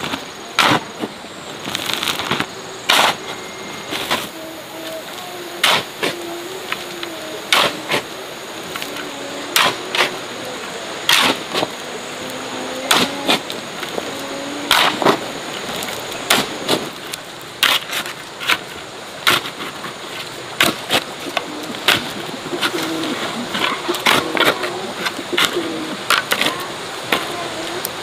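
A run of sharp knocks, irregular at roughly one a second, over a faint wavering hum.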